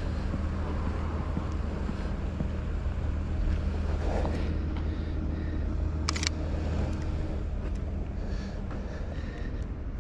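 Steady low hum of city street traffic, with a single camera shutter click about six seconds in.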